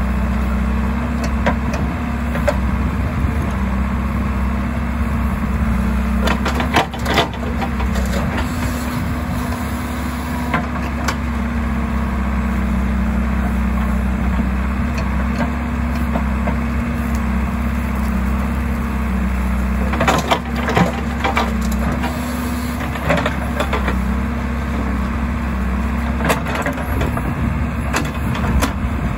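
JCB 3DX backhoe loader's diesel engine running steadily under load as the backhoe digs, with knocks and clatter from the bucket working the earth now and then, most of them in clusters about six, twenty and twenty-seven seconds in.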